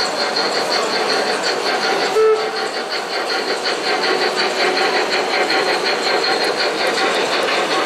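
Model steam train rolling past, its wheels making a quick, even clicking on the track, with a short whistle toot about two seconds in.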